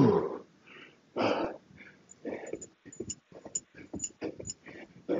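A man breathing hard from heavy kettlebell swings: a loud groan falling in pitch at the start, then a run of quick, short breaths.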